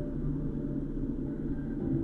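A car driving: a steady low rumble of engine and road noise, with a faint hum underneath.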